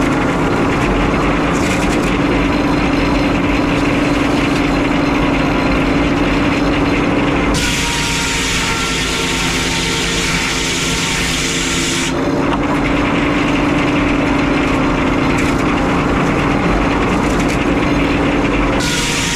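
Frick 01-C circular sawmill running steadily with a strong hum. For about four and a half seconds in the middle the hum gives way to a loud high hiss, which fits the blade going through a log, then the steady hum returns.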